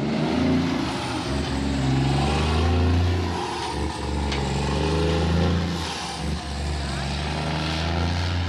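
Diesel engine of a Freightliner Argosy cab-over semi-truck pulling away past the camera, a strong low engine note under load. The note breaks off briefly twice, a little before halfway and about three-quarters through, as the truck changes gear.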